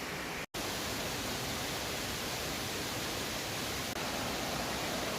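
Steady rushing of a nearby waterfall, broken by a split-second dropout about half a second in.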